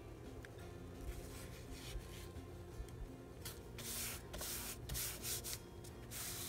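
Hands rubbing and smoothing a paper napkin down onto a glued paper tag: a series of papery rubbing strokes, louder in the second half.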